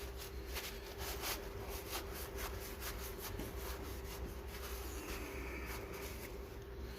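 Faint scraping and light, irregular clicks of metal parts being worked by hand on a Bobcat 444 drive sheave, over a steady faint hum.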